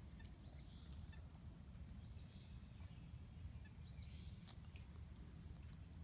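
Faint, high bird calls: a short note repeated about every two seconds over a quiet background, with a faint click about four and a half seconds in.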